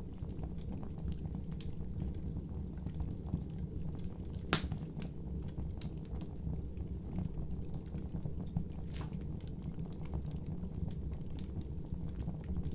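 Wood fire burning with a steady low rumble and scattered crackles and pops, one sharp pop louder than the rest about four and a half seconds in.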